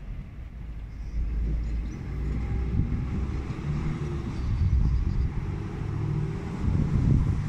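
A motor vehicle passing, a low rumble that grows louder about a second in and stays up.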